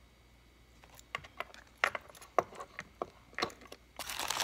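Small metal lock cylinders and keys being handled, giving a string of sharp clicks and clinks between about one and three and a half seconds in. Crinkling of packing wrap starts near the end.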